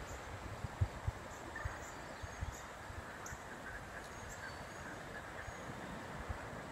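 Outdoor ambience: wind buffeting the microphone in irregular low thumps over a steady hiss, with a few faint high chirps.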